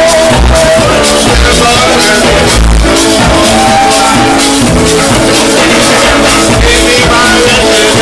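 Live rake-and-scrape band music: a hand drum beaten in a steady beat under electric bass and electric guitar.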